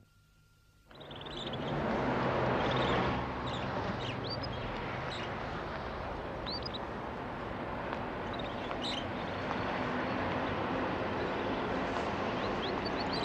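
Near silence, then about a second in, street ambience fades in: a steady low rumble of traffic with small birds chirping now and then.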